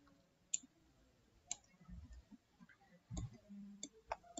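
A few faint computer-mouse clicks, sparse and a second or more apart, with a soft low thump about three seconds in.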